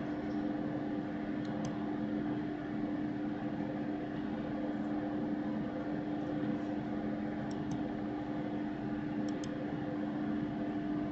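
Steady low hum with hiss, the background noise of a room and recording setup, holding two low steady tones throughout. A few faint mouse clicks come in pairs, about one and a half, seven and a half and nine seconds in.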